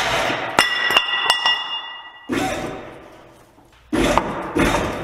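Metal clanking from tools and parts being worked under a truck. Loud bursts of clatter fade away in turn, and a sharp metallic clink about half a second in keeps ringing for over a second.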